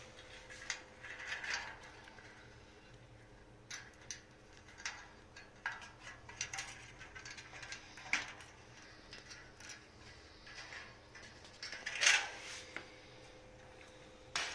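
Small clicks and light metallic rattles of push-on wire connectors being fitted to thermostat terminals on a dryer heating element's sheet-metal plate. Near the end there is a louder clatter as the plate with its wire coils is lifted and turned over.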